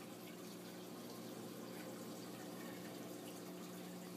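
Steady low hiss with a faint electrical hum underneath: the recording's background noise, with no whispering.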